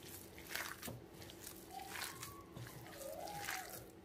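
Bare hand squeezing and kneading a wet minced chicken mixture in a bowl: faint, irregular squelching strokes.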